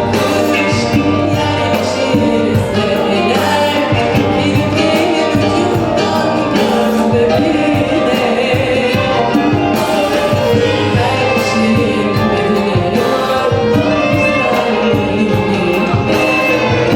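Music: a song with instruments, a steady beat and sung voices.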